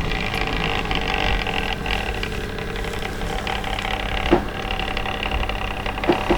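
DCC-fitted Bachmann 64XX pannier tank model locomotive running slowly on the track, its small motor giving a steady hum, with a click about four seconds in and a few more clicks near the end.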